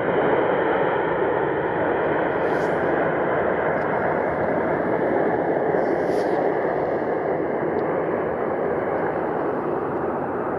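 Boeing 787 Dreamliner's twin turbofan engines at takeoff power during the takeoff roll: a steady jet roar.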